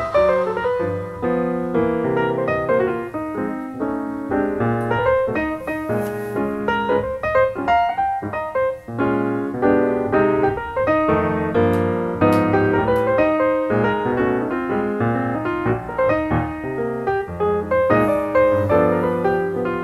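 Piano music: a continuous piece of many quick notes with chords.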